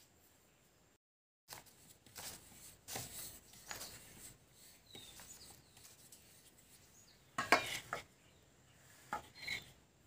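Wooden rolling pin rolling out a thin sheet of dough on a wooden board: soft rubbing and light knocks, with a louder clatter about three-quarters through.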